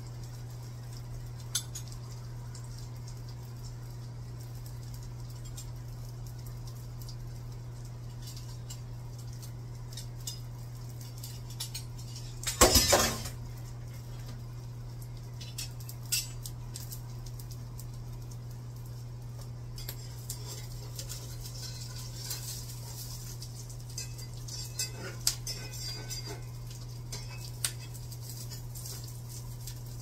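Kitchen utensils clinking and scraping in a frying pan as eggs are cooked and turned with a spatula, with scattered light clicks and one loud clatter about 13 seconds in. A steady low hum runs underneath.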